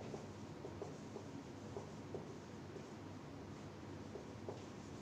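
Marker pen writing on a whiteboard: faint, irregular short strokes and taps of the tip against the board, over a steady low room hum.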